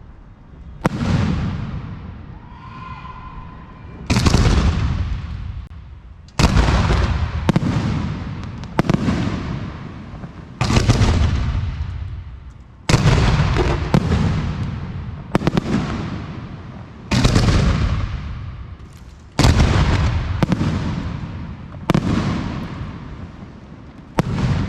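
Fireworks display: aerial shells bursting one after another, a loud bang every one to two seconds, each fading out in a long echo.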